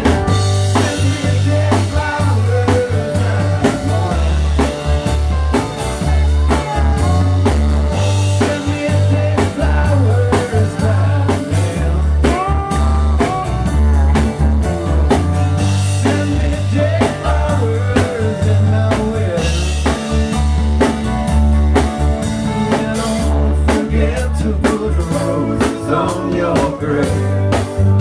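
Live rock band playing a blues-rock number: drum kit with cymbal crashes, electric guitar and a heavy, steady bass line.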